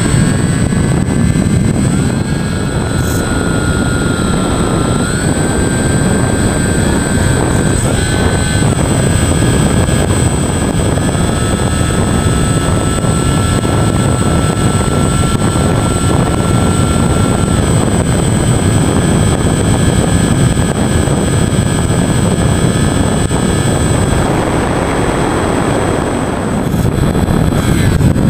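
Onboard sound of a FunJet foam FPV model plane in flight: its brushless electric motor and propeller whine, the pitch stepping up and down with the throttle, over heavy wind rush on the microphone, with a constant thin high tone. The motor whine drops out about three-quarters of the way through, leaving mostly wind.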